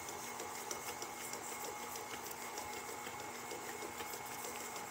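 Stand mixer running steadily on low speed, creaming softened butter and sugar: an even motor hum with faint, irregular ticks.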